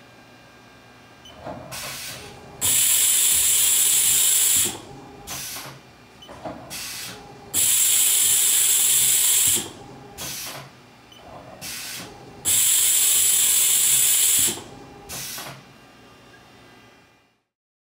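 Haas VF-4SS side-mount tool changer cycling through three tool changes. Each has a loud hiss of compressed air lasting about two seconds, with shorter mechanical clunks and whirs of the changer arm between the hisses.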